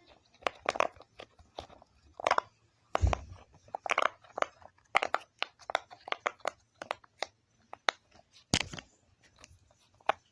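Cake-shaped silicone poppet (push-pop fidget toy) having its bubbles pressed through one after another, giving irregular soft pops, two or three a second.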